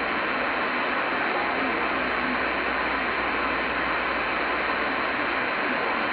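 Uniden PC-122XL CB radio on single sideband, its speaker giving a steady hiss of band noise between transmissions, with faint garbled overlapping voices under the static.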